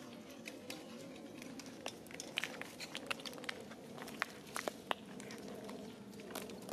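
A long-tailed macaque chewing and biting food, heard as scattered small clicks and crunches, most of them in the middle, over a steady low background hum.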